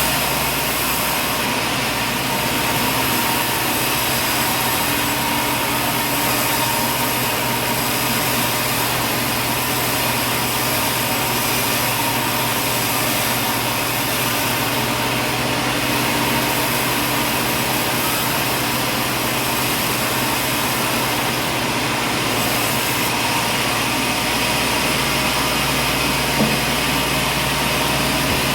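Sawmill machinery running steadily: a continuous machine drone with a constant hum and hiss, and one short knock near the end.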